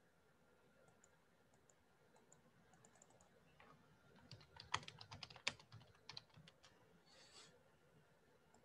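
Faint typing on a computer keyboard: a quick run of key clicks in the middle, with a short soft hiss near the end.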